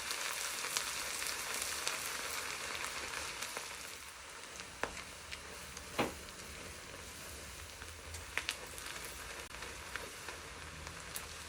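Sliced onions frying in oil in a wok, a steady sizzle that gets a little quieter about four seconds in, with a few sharp clicks of a utensil against the pan.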